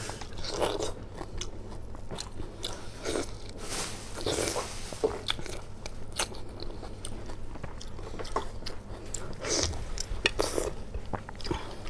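Ripe, juicy star fruit being bitten and chewed close to a lapel microphone: a run of crisp bites and wet crunches, irregularly spaced.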